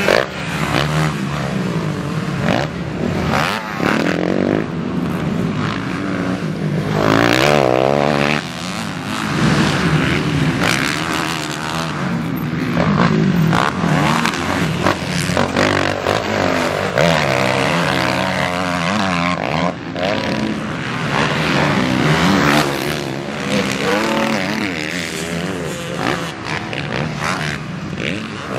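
Four-stroke Kawasaki motocross bike engines revving hard on a dirt track, the engine pitch rising and falling again and again as the riders accelerate, back off and jump.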